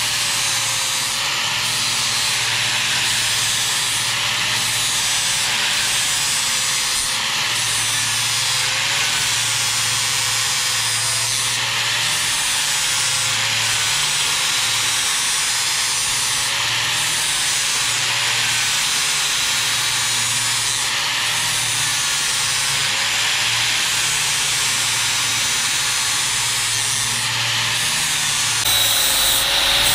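Angle grinder mounted in a blade-sharpening jig, its abrasive wheel grinding the cutting edge of a steel lawn mower blade. The motor's whine wavers slowly up and down, about every two seconds, as the wheel is worked along the edge, over a steady hiss of grinding, and grows a little louder near the end.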